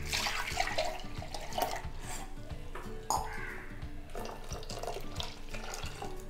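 Water sloshing in a steel mixer-grinder jar and pouring out into a steel pot of ground tomato, rinsing out the tomato left in the jar, with the metal jar knocking against the pot about three seconds in.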